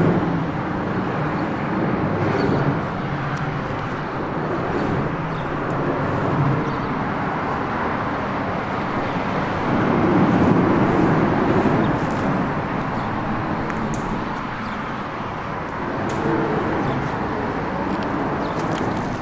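Steady road traffic noise from the highway overhead, swelling louder for a couple of seconds about ten seconds in.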